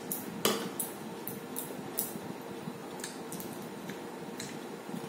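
Spoons clinking and scraping against bowls and ice cream cups: a quick run of light clicks, the loudest about half a second in, then a few scattered taps, over a steady low background hum.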